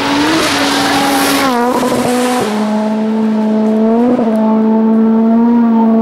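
Rally car engine running hard at high revs. It holds a steady high note, dips briefly about a second and a half in, then steps down to a slightly lower pitch and holds there.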